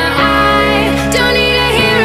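Background music: a sung or synth melody over sustained bass notes.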